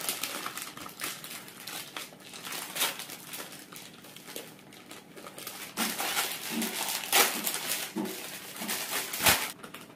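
Packaging crinkling and rustling as the parts of a sink drain plumbing kit are unwrapped, with scattered louder crackles.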